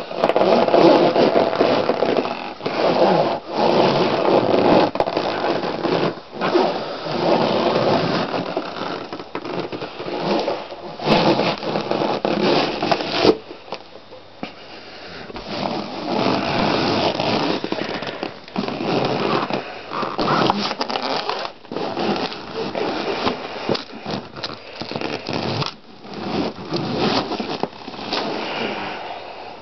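Inflated latex balloons squeezed and rubbed under a foot, the rubber squeaking and creaking in uneven surges. The noise cuts off abruptly about 13 seconds in, then starts again.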